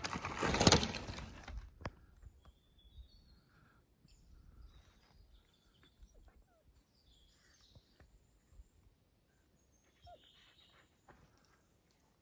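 A child's Islabikes Beinn 20 mountain bike passes close by on a dirt forest trail, its tyres crunching over roots and twigs for about the first second and a half. After that the woods are quiet, with faint bird chirps.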